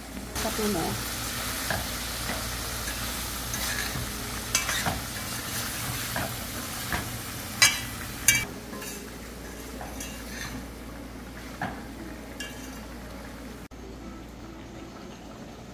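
Bodi (long beans) and tomatoes sizzling as they fry in a metal pot, stirred with a utensil that scrapes and knocks against the pot now and then. The sizzle stops suddenly near the end.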